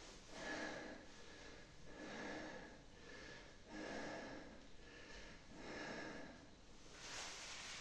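A man breathing steadily as he holds a standing balance stretch, about one breath every one and a half seconds.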